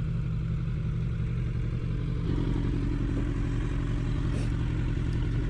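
Kawasaki Ninja 1000's inline-four engine running steadily at low revs; a slightly higher note joins about two seconds in.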